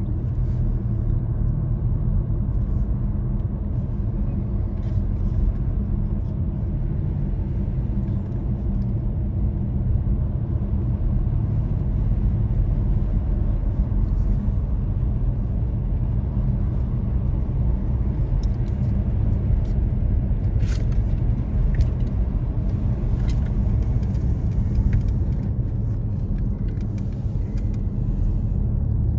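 Steady low rumble of tyre and engine noise heard inside a car cabin while driving on a highway, with a few faint clicks about two-thirds of the way through.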